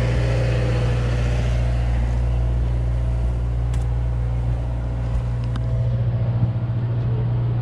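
Steady low drone of a sportfishing boat's diesel engine idling.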